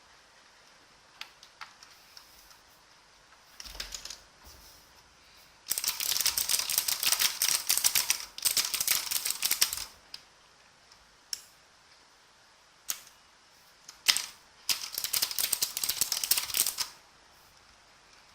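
Element Z77 mechanical keyboard with clicky blue Outemu switches being typed on: a few single key presses, then a fast run of typing lasting about four seconds and, after more scattered presses, a second run of about two seconds.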